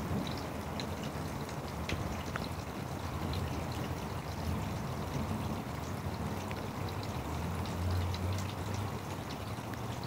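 Steady rain falling, a continuous wash of water sound with scattered drips tapping throughout.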